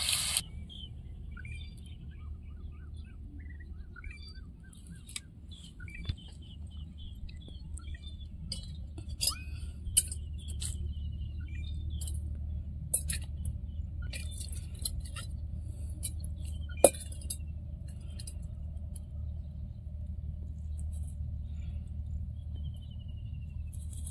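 Small birds chirping in short bursts over a steady low rumble, with a few sharp metallic clinks of steel pots and bowls being handled, the loudest about ten and seventeen seconds in.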